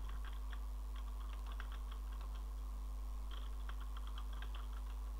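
Typing on a computer keyboard: quick, irregular key clicks with a pause of about a second midway, over a steady low electrical hum.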